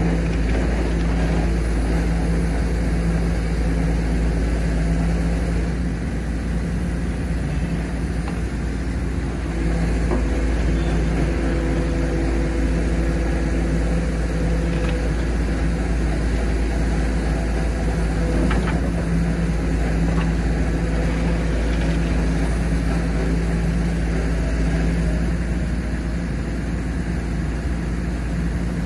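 Dump truck engine running steadily while the tipper bed is raised to dump its load of sand. Sand is pouring out over the tailgate.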